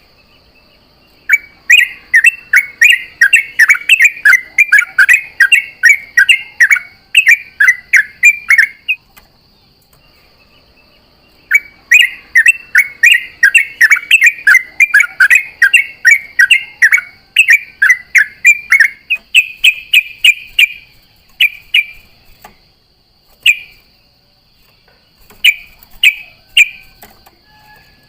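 Yellow-vented bulbul (trucukan) singing in two long, rapid runs of bubbly chattering notes, about four a second, each run lasting some seven seconds, then a few scattered single notes near the end. A faint steady high whine runs underneath.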